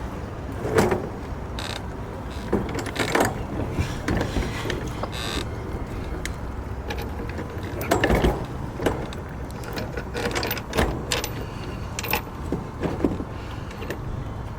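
Irregular mechanical clicks, clanks and knocks over a steady low background noise: the hardware of a dinghy outboard motor mount being worked and adjusted.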